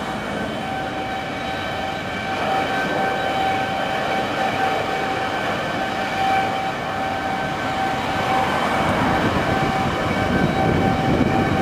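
Vickers VC10's four rear-mounted Rolls-Royce Conway jet engines running with a steady high whine over a rumble, the roar growing louder in the last few seconds as the engines are run up to roll.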